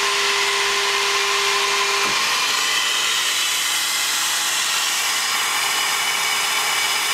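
Flow bench vacuum motors running with a steady whine and rush of air. About two seconds in, a second motor switches on and spins up, its whine rising and settling, to bring the test pressure back up as flow through the exhaust port increases at 0.300 in valve lift.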